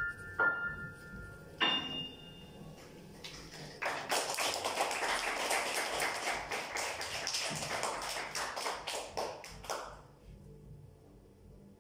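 Grand piano playing its last few notes, with a final chord about two seconds in. A few seconds later a round of applause sets in for about six seconds, the claps thinning out and stopping near the end.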